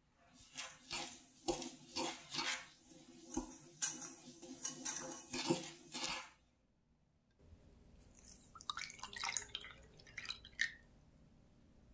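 Wire whisk stirring dry sugar and agar powder in a saucepan: quick scraping, rustling strokes, two or three a second, for about six seconds. After a short pause, orange juice is poured onto the sugar, splashing and trickling for about two seconds.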